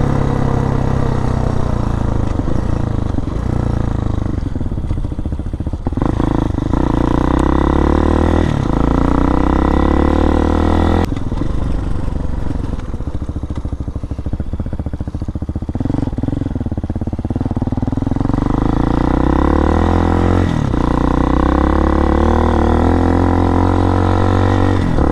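Hawk DLX dual-sport motorcycle's single-cylinder four-stroke engine running under way and running well, its note rising and falling with the throttle. The note drops abruptly about six, eleven and twenty seconds in.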